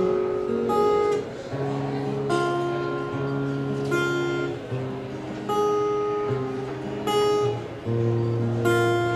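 Two acoustic guitars playing a song's introduction: chords strummed about every second and a half and left to ring between strums.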